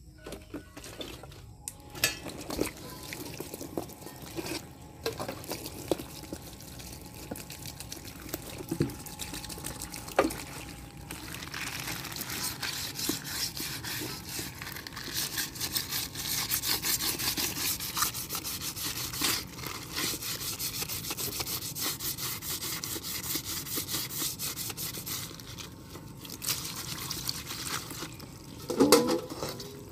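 Water from a hose running and splashing over a steel pamor machete blade on a plastic sheet, starting about eleven seconds in, as the freshly etched blade is rinsed and scrubbed by hand. Before the water comes on there are scattered light knocks and taps of the blade being handled. A brief loud sound comes near the end.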